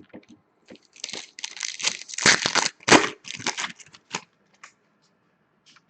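A hockey card pack's wrapper being torn open and crinkled by hand: a run of rustling and tearing for about three seconds, with a few light clicks before and after.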